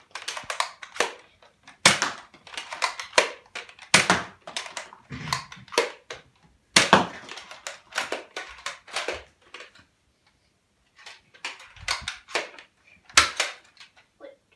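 A Nerf foam-dart blaster being primed and fired again and again: a run of sharp clacks and clicks, with a break of about a second just past the middle.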